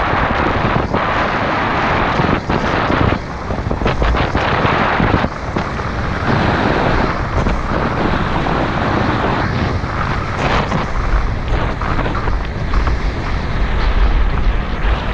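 Wind buffeting the microphone of a camera on a mountain bike riding fast down a dirt forest trail, with a steady rumble of tyres on the dirt and short knocks and rattles from bumps in the trail.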